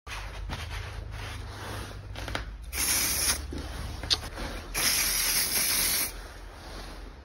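Aerosol spray can sprayed in two bursts of hiss, a short one about three seconds in and a longer one of more than a second about five seconds in, with fainter hissing and scratching between.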